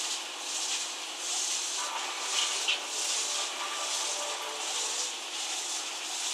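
Water circulation in a saltwater reef aquarium: a steady hiss of moving water and air bubbles that swells and eases a little faster than once a second, with two small ticks about two and a half seconds in.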